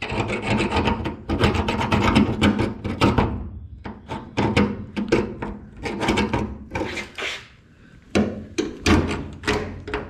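Hooked end of a paint can opener scraping paint out of the seal channel in a VW Beetle's steel front hood, metal rasping on metal in repeated strokes. It clears the paint that would stop the rubber hood seal from being pulled through the channel. The scraping is dense at first, turns to separate strokes, and pauses briefly about seven and a half seconds in.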